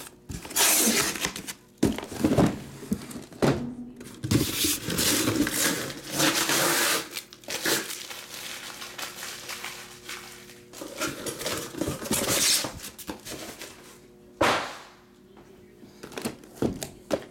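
Sealed cardboard trading-card boxes being slid out of a corrugated shipping case and set down on a table: scraping and rustling cardboard with several thunks, and one sharp knock late on.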